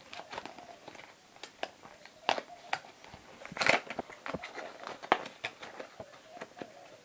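Small cardboard microphone box being opened by hand: scattered taps, scrapes and rustles of the cardboard and its packaging, with a few louder clicks between about two and five seconds in.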